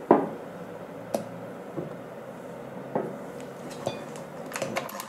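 Kitchenware being handled while soft butter is added to Swiss meringue: a few sharp clinks and knocks of a spatula against an enamel cup and a glass mixing bowl, the loudest one just at the start and a quick run of clicks near the end.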